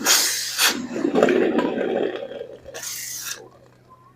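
Hot forged iron being quenched in water: a sharp hiss as it goes in, a rougher, lower seething for about two seconds, then a second hiss about three seconds in before it dies away near the end.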